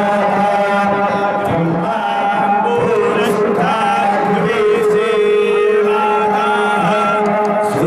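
A man's voice chanting into a microphone in long held notes that step from pitch to pitch, amplified, over a steady low tone.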